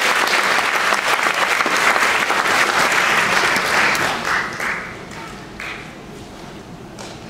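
Audience applauding, then dying away about five seconds in to scattered claps and a low background.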